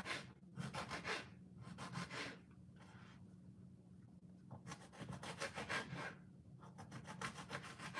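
Kitchen knife cutting eggplant into smaller pieces on a wooden cutting board: runs of quick strokes, with a pause of about two seconds near the middle.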